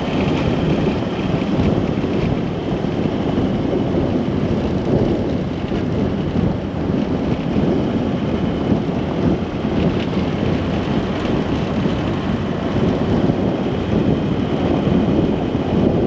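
Vehicle driving along a rough dirt track: a steady, loud rumble of tyre and road noise without a break.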